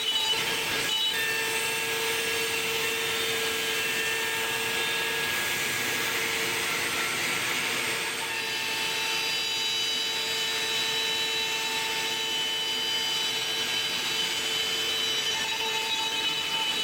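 CNC router cutting wood: the spindle runs with a steady whine of several high tones over a constant hiss from the bit cutting.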